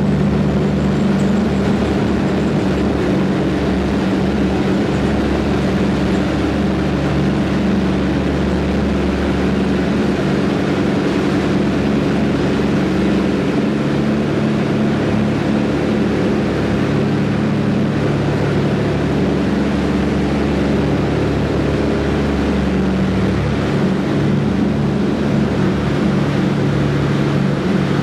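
Twin Pratt & Whitney R-1830 radial engines of a Douglas C-47 running steadily during the takeoff run, heard from inside the cabin as a loud, even drone.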